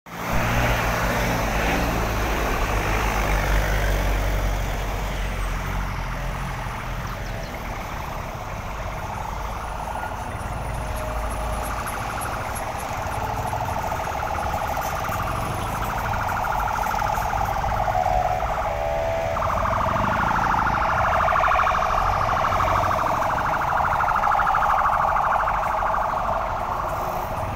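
Road traffic: vehicle engines running steadily.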